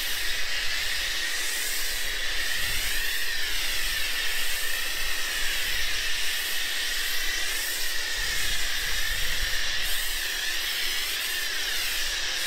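Pressure-washer foam lance spraying thick wash foam onto a car's panels: a steady hiss whose tone wavers gently as the jet sweeps across the bodywork.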